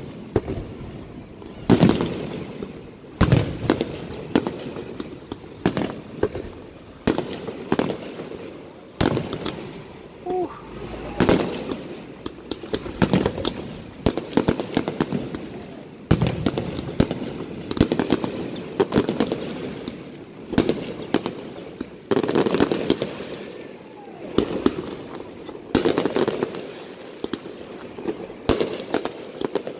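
Fireworks display: aerial shells bursting in repeated sharp bangs at irregular intervals, often several in quick succession, with echoing rumble between them.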